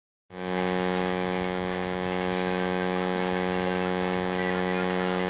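Steady electrical hum with many overtones, coming in just after the start and holding unchanged at one pitch.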